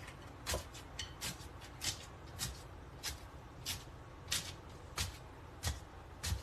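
Slime being pressed and squeezed by hand: about a dozen short squelches, roughly one every half second.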